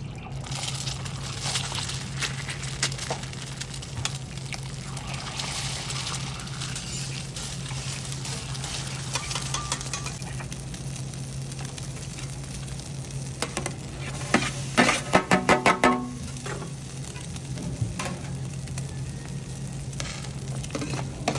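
Food sizzling on a hibachi teppanyaki griddle, with a steady low hum under it. About two-thirds of the way in comes a quick run of sharp metal clacks, the loudest sounds.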